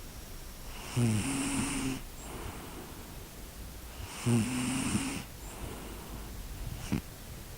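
Snoring: two long snores about three seconds apart, each with a pitch that drops at the start and then holds steady.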